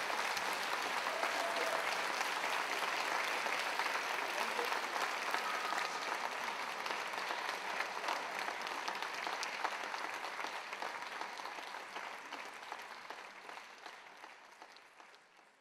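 Audience applauding, a dense patter of many hands clapping that dies away over the last few seconds.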